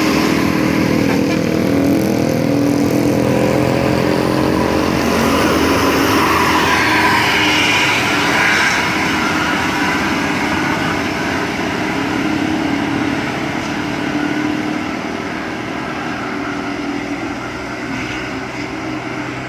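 Diesel engine of a large intercity bus pulling up a steep climb as it passes close by, growing fainter over the last several seconds.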